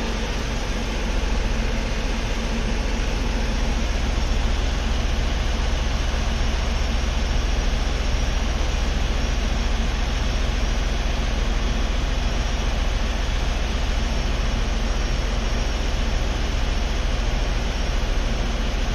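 2016 Ford Explorer engine idling steadily: a constant low hum with an even rushing noise over it, picking up slightly about a second in.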